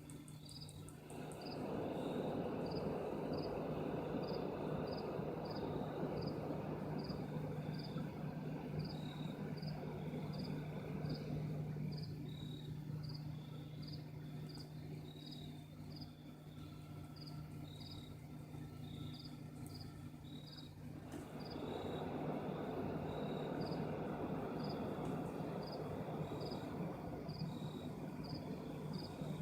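A steady low hum with a broad rumble that swells up twice, each time for about ten seconds, the kind of unexplained hum and rumble reported in the sky. Short high chirps repeat about twice a second throughout, like an insect such as a cricket.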